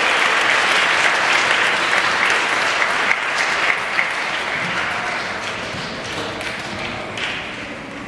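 Audience applauding with many hands clapping, dying away gradually over the last few seconds.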